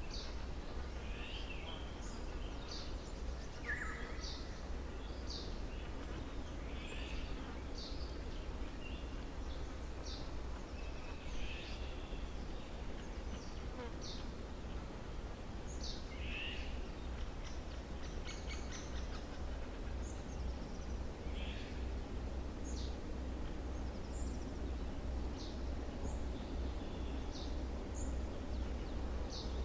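Wild songbirds singing, short chirps and whistled phrases scattered throughout, over a steady low rumble that grows slightly louder near the end.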